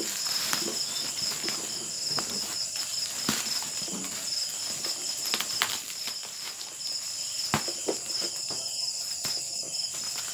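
Bubble wrap crinkling and crackling as it is pulled off a cardboard box, with irregular sharp crackles. Insects chirp steadily and high-pitched underneath throughout.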